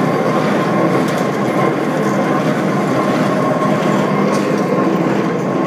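Chairlift bull wheel and haul cable running at the lift station: a steady mechanical running noise with a constant hum-like tone through it.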